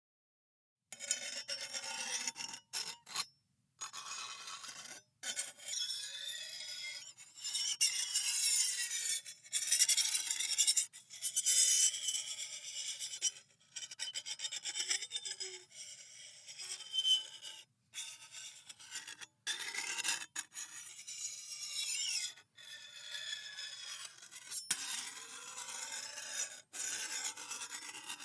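Metal scraped slowly against metal in a series of drawn-out strokes with short breaks between them, starting about a second in. The scraping is rasping and high-pitched, with wavering squeals running through it.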